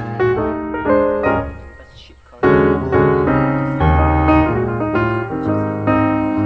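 Background music led by piano or keyboard, playing a run of notes; it thins out briefly about two seconds in, then comes back strongly.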